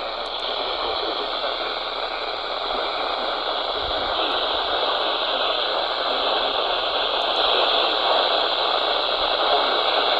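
Radio static: a steady hiss of receiver noise, slowly growing louder.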